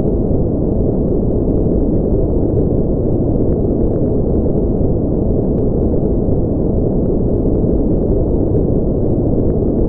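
Steady, deep rumbling noise that stays even throughout, with no speech or music.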